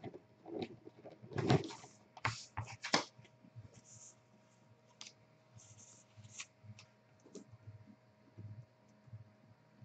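A cardboard product box being handled: rustling and light knocks in the first few seconds, then faint scattered clicks.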